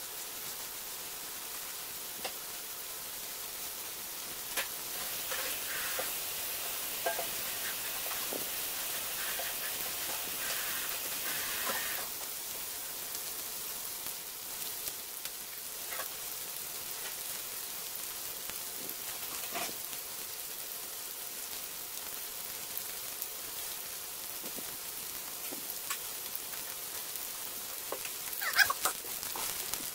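Sliced mushrooms sizzling in sauce in a nonstick frying pan: a steady hiss with scattered small pops and crackles. A few louder sounds come near the end.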